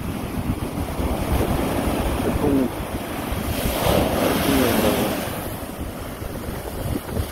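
Rough sea surf breaking and washing up the sand, with wind buffeting the microphone. A wave breaks and rushes in louder around the middle, then the wash fades.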